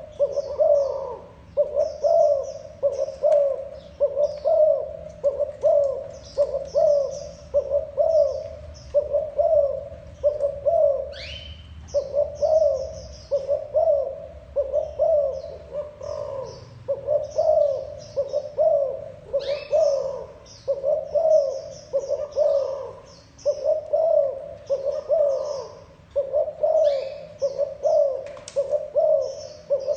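Spotted dove giving its bowing coo over and over, about one coo a second, with a short pause about eleven seconds in. Small birds chirp faintly in the background.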